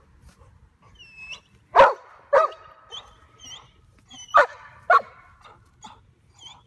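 A dog barking: four loud barks in two pairs, about two seconds in and again about four and a half seconds in, with short high whines in between.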